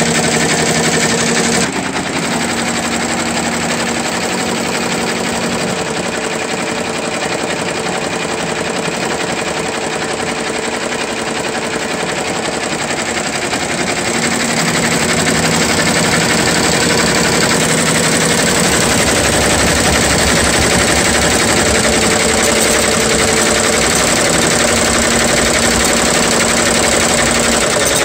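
Ricoma RCM1232C two-head, 12-needle commercial embroidery machine stitching at speed: a fast, dense needle clatter over a steady motor hum. It gets somewhat louder about halfway through.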